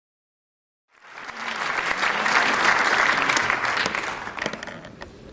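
Audience applauding: the clapping starts about a second in, swells, then dies away to a few scattered claps near the end.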